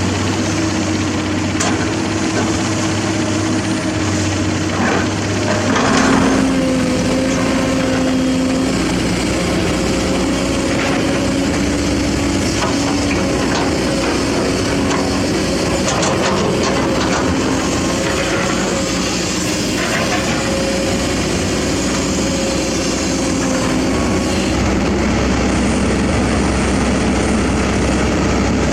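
Diesel engines of hydraulic excavators running under working load while digging mud. A steady whine changes pitch about six seconds in, with a few short knocks.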